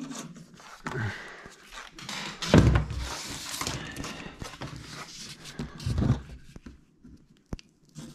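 Handling noise from a foam rubber seal strip being unrolled and measured out, with a few dull thumps. The loudest thump comes about two and a half seconds in and another near six seconds, then a single sharp click.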